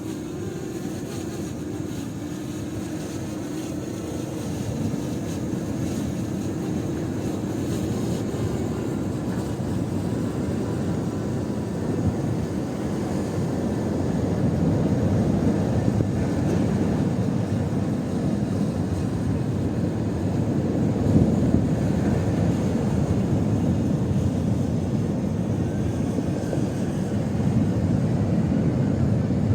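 Strong wind buffeting the microphone, a low rumbling noise that grows louder and gustier as it goes.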